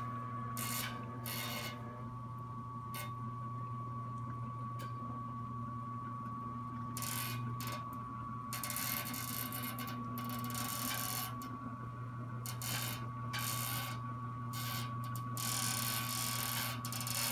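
Electric motor and winch of a davit boat lift running steadily as it raises a small boat: a constant hum with a thin steady whine over it, broken by repeated patches of hiss.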